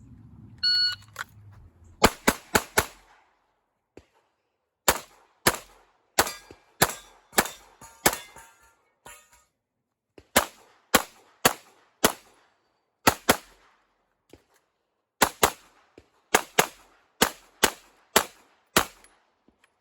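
A range officer's shot timer beeps once. Then a 9mm Glock 17 Gen 5 pistol fires a long string of rapid shots in quick groups, with the hits ringing on steel plates.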